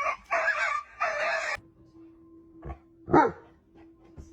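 Rapid, repeated barking that cuts off abruptly about a second and a half in. After that comes a quieter stretch with a faint steady hum and a few clicks, then one short, loud bark just after three seconds in.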